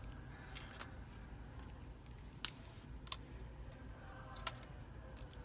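A few small sharp clicks and taps, seconds apart, the loudest about two and a half seconds in, from small tools and parts handled during an iPhone home-button swap.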